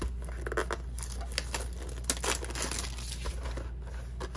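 Crinkling and tearing of trading-card packaging as packs are ripped open and handled, many short crackly rustles in quick succession.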